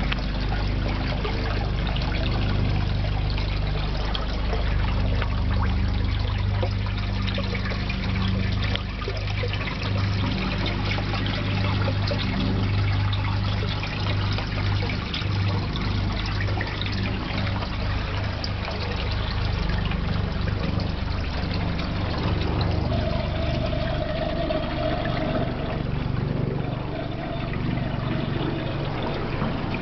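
Water trickling and splashing into an aquaponics fish tank from the return flow, over a steady low hum.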